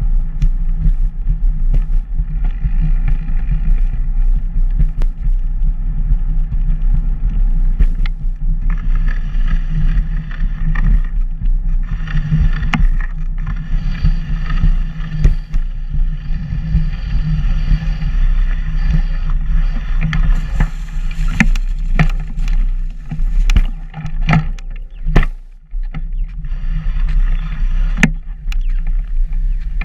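Steady low rumble of wind and motion noise on a moving camera travelling along a paved path, with scattered sharp knocks and rattles that come more often in the second half.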